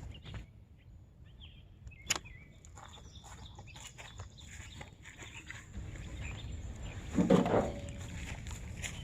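Outdoor farm ambience with scattered short bird chirps over a low background rumble. A sharp click comes about two seconds in, and a louder brief rustling thump about seven seconds in.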